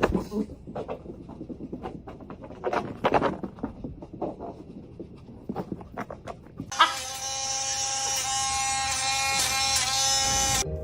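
Husky vocalizing in short, uneven yelps and grumbles, refusing to come inside. About seven seconds in, a long held tone with slight dips starts suddenly and cuts off abruptly near the end.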